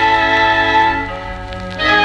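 Symphonic wind band playing held chords. The sound eases off a little past halfway, then a fuller new chord comes in near the end.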